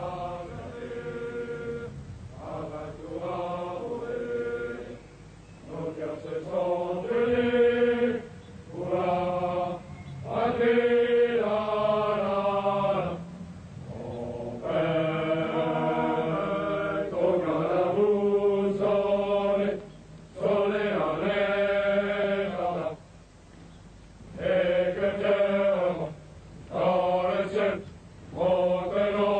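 Many men's voices of marching French Foreign Legion soldiers singing a marching song together, in long held phrases with short breaks for breath between the lines.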